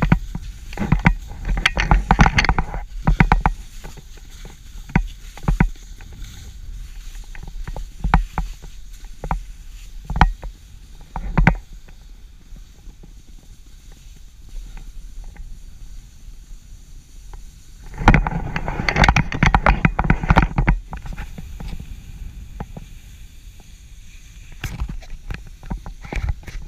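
Skis sliding and scraping over snow on a downhill run, with scattered clicks and clatter and a steady wind rumble on the microphone. The scraping grows louder and denser near the start and again about two-thirds of the way through.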